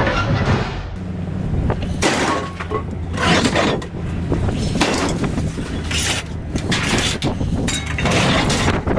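Pieces of scrap metal clanking and scraping as they are handled and thrown, several sharp crashes spread over the stretch, over the steady hum of an idling engine.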